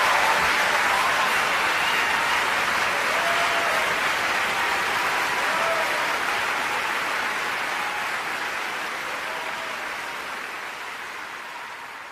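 Large audience applauding steadily, the applause fading gradually away toward the end.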